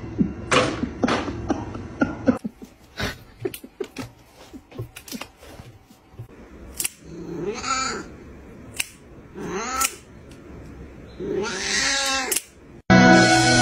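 A run of clicks and knocks, then a domestic cat meowing loudly three times, the last a long, drawn-out yowl. Music comes in near the end.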